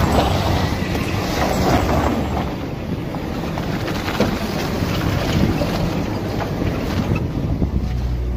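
Toyota Land Cruiser's 4.7-litre V8 engine running steadily at low speed as it crawls over snow, with wind buffeting the microphone.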